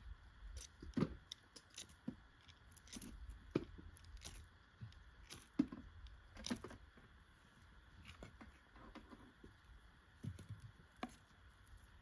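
Ferro rod being struck to light a fire: a string of short, faint, irregular scrapes and clicks, several seconds apart at times.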